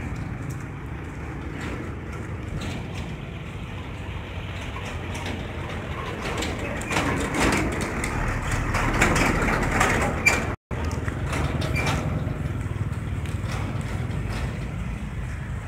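Street traffic: a steady low engine rumble, with a vehicle passing loudest about seven to ten seconds in. The sound cuts out for an instant just after.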